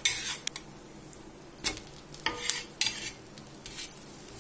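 Steel spatula scraping and clinking on a hot dosa griddle in a few short strokes as a dosa is lifted and flipped, over a faint sizzle of oil.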